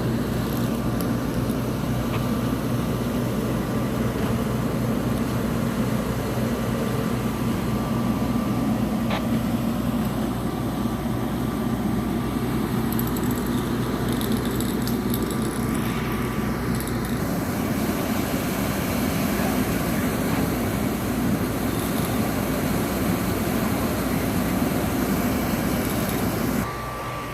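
Fire truck engine idling steadily at the scene, a constant low running hum that drops suddenly near the end.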